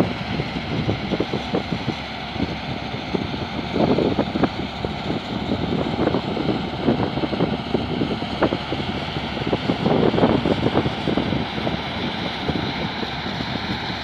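Farm tractor's diesel engine running steadily under load as it drives a PTO water pump, with gusts of wind buffeting the microphone.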